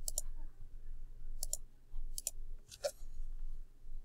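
Computer mouse button clicking: four quick clicks spread over a few seconds, most heard as a close double tick of press and release.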